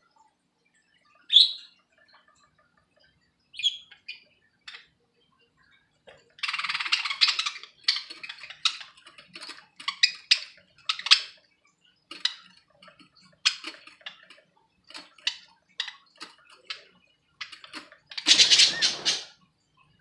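Budgerigars chirping and chattering: a few short calls at first, then a denser run of chatter from about six seconds in and scattered chirps after it, with a louder, noisier burst near the end.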